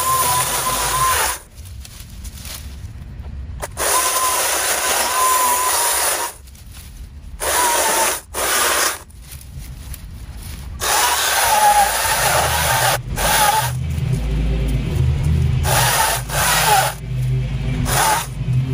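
Cordless electric saw cutting brush and small stems, run in repeated bursts with short stops between them. Its motor whine wavers in pitch as it bites into the growth.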